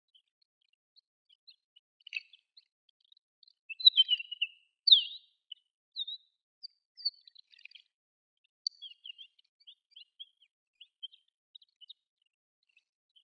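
Desert wheatear subsong: a rambling run of short chirps, ticks and squeaky notes, with a louder cluster of scratchy notes and a sharp down-slurred note about four to five seconds in.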